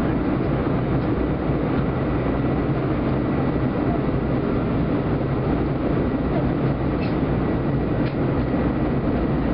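Steady cabin noise of an Airbus A320 in flight: jet engines and rushing airflow heard through the window seat, heaviest in the low range, with a faint steady high whine over it.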